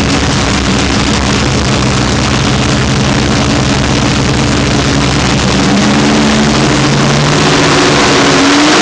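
Naturally aspirated LSX V8 race engine with a Lunati solid-roller camshaft running loud on an engine dyno. Its pitch climbs slowly and it grows louder from about halfway in, then rises more sharply near the end as the revs sweep up.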